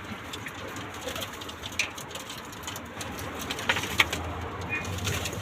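Domestic pigeons cooing, with a few light knocks and clicks.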